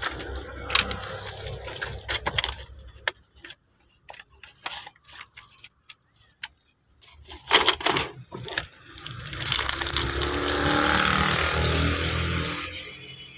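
Plastic clicking, knocking and rattling as a light-up drawing pad and its clear plastic blister tray are handled, with many short sharp knocks. About nine seconds in, a steadier stretch of noise takes over for roughly four seconds, then fades.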